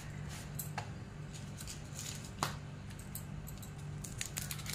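Faint clicks and rustles of hands handling bread slices and a plastic-wrapped cheese slice on a wooden chopping board, with one sharper click about halfway through, over a steady low hum.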